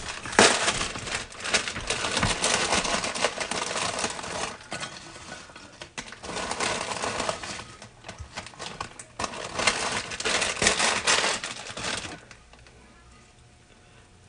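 A plastic potato chip bag crinkling as it is opened and shaken, with chips rattling out onto a paper plate. The crackling stops about twelve seconds in.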